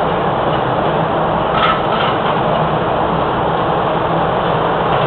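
Steady loud machine-like drone and hiss of workshop background noise, with a brief sharp metallic knock about a second and a half in.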